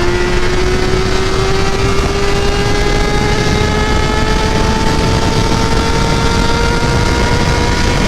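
Kawasaki ZX-6R inline-four engine with an aftermarket SC exhaust, pulling steadily under load: its note climbs slowly and evenly as the bike gains speed. There is steady wind and road noise underneath.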